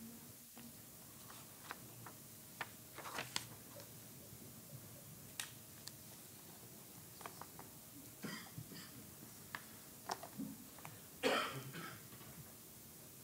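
Quiet meeting-room tone with scattered small clicks and handling noises, and a short cough near the end.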